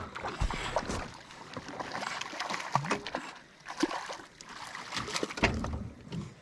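Water splashing and sloshing with scattered sharp knocks and clicks, as a hooked fish is played on a fly rod from a boat.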